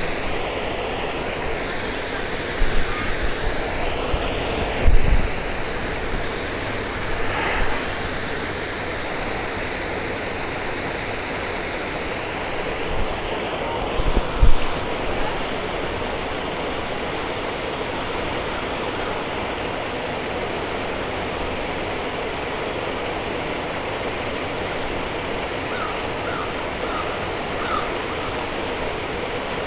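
Steady rushing of a small waterfall pouring over rock into a pool. A few low thumps stand out about 3, 5 and 14 seconds in.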